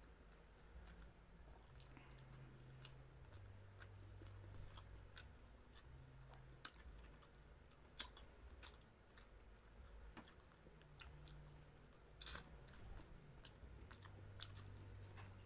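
Quiet chewing and eating noises, chicken inasal and rice being eaten, with scattered small clicks and one sharper click about twelve seconds in.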